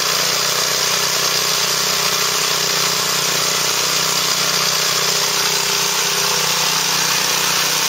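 Pressure washer running steadily: a constant motor drone with the hiss of the water spray.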